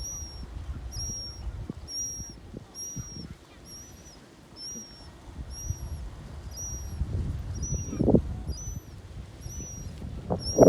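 A bird repeating a short, high, clear call note about once every 0.8 s, over a low rumble.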